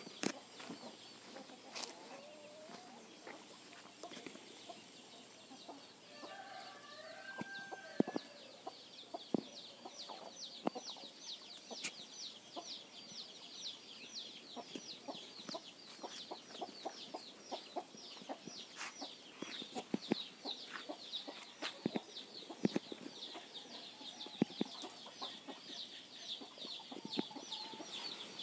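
Chickens: a long run of high, falling peeps, about three a second, growing stronger about ten seconds in, with a few lower clucks early on, over scattered sharp ticks.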